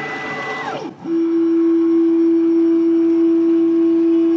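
Carvera Air desktop CNC mill's stepper motors whining as they drive the head around the outline of the job: a tone that slides down as the axis slows in the first second, then a steady whine.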